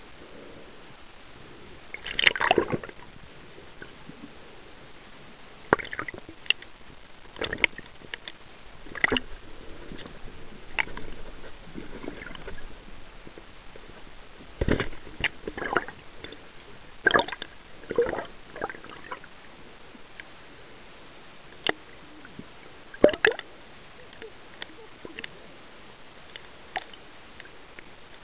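Water sloshing and bubbling around a camera held just below the sea surface, heard through the water, with irregular sharp splashes and clicks every second or two over a steady hiss. The biggest splashes come about two seconds in and again near the end.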